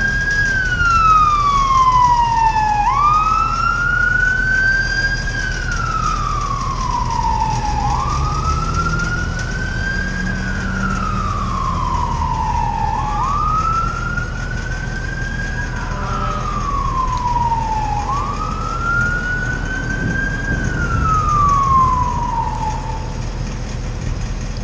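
Emergency vehicle siren wailing: five slow sweeps that rise quickly to a high pitch and glide back down, about one every two and a half seconds, the last fading out near the end. A steady low engine rumble runs underneath.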